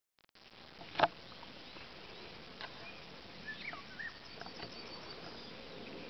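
Summer countryside ambience: a steady background hiss with faint insect buzzing and a few short bird chirps near the middle. A sharp click about a second in is the loudest sound.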